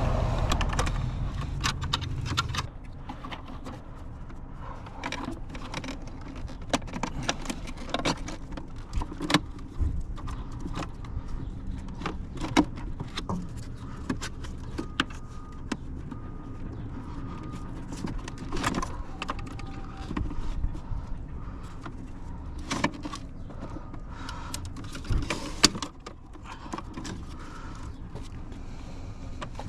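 Small parts and hand tools being handled: irregular clicks, taps and rattles of metal and plastic, a few louder knocks. A steady low hum stops abruptly about three seconds in.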